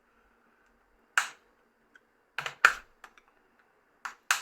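Sharp plastic clicks and snaps from a Nokia 7650's plastic parts being pried and worked apart. There are about five of them, spread unevenly, the loudest a little past halfway, over a faint steady hum.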